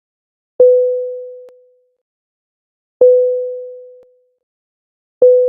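Synthesized imitation of an airliner 'fasten seatbelts' cabin chime: a single-pitch sine tone sounded three times, about two and a half seconds apart. Each tone starts sharply and fades out over about a second, with a faint click as it dies away.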